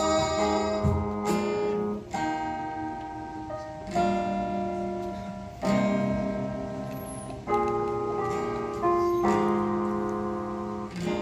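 Instrumental passage of a slow ballad played live: guitar chords struck about every two seconds, each ringing out and fading before the next.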